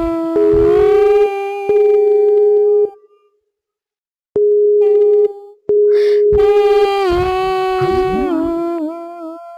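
A loud, harsh, steady buzzing tone held in long stretches with short breaks, with a second of silence about three seconds in. Near the end the pitch wavers and steps down.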